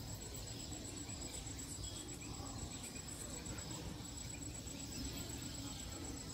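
An insect trilling steadily at a high pitch in rapid, even pulses, over a faint low background rumble.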